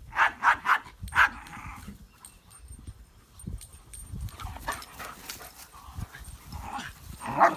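A dog yipping in short high calls: three quick ones right away, another a moment later, then fainter ones toward the end.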